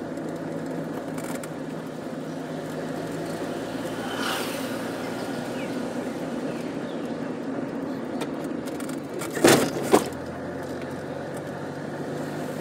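Engine and road noise of a moving car heard from inside the cabin, a steady hum. Near the end come two sharp knocks about half a second apart, the loudest sounds here.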